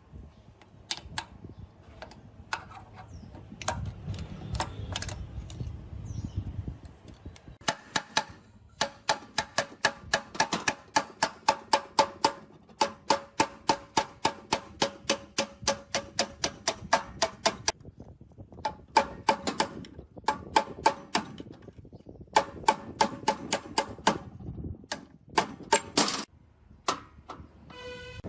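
Rapid metal-on-metal tapping, about four strikes a second, in runs broken by short pauses, each strike ringing briefly.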